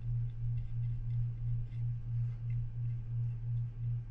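Low steady hum, pulsing evenly about three times a second.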